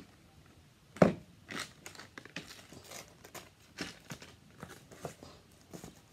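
Paper packaging handled and crinkled, with a sharp knock about a second in followed by scattered rustles and clicks.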